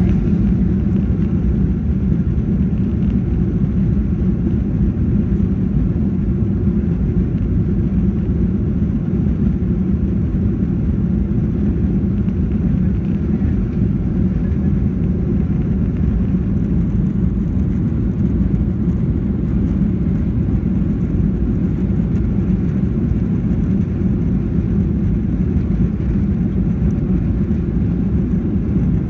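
Steady low rumble inside the cabin of a Boeing 737-800 taxiing, its CFM56 engines at low power.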